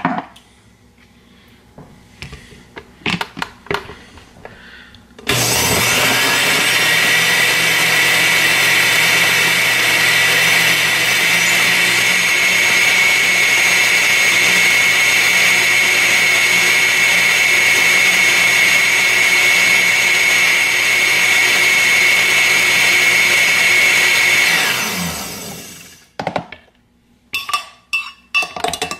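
Countertop blender with a glass jar blending a milkshake. It starts suddenly about five seconds in, runs at a steady speed with a high whine for about twenty seconds, then spins down with falling pitch. A few knocks come before it and light clinks follow near the end.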